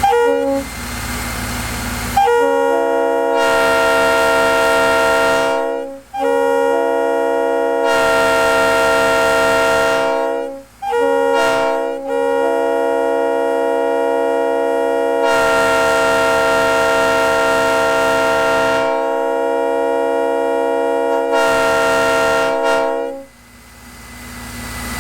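A Leslie RS3L three-chime air horn blowing a steady chord: a short toot, then two long blasts of about four seconds each, a brief toot, and a final long blast of about eleven seconds that cuts off near the end.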